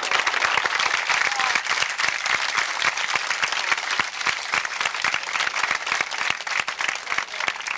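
Audience applauding: a dense, steady patter of many hands clapping, with a few voices mixed in.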